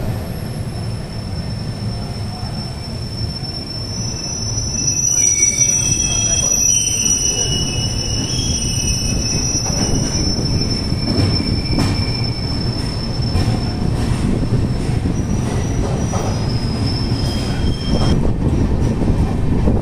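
Passenger train coach running on the rails, heard from inside the coach: a steady low rumble that grows louder about five seconds in, with thin high-pitched wheel squeals coming and going after that.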